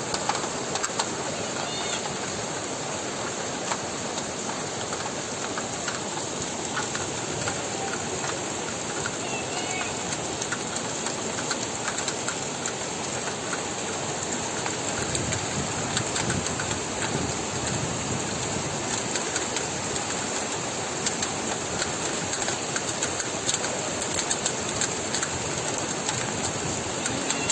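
Heavy rain falling steadily: a dense, even hiss with many small drop ticks.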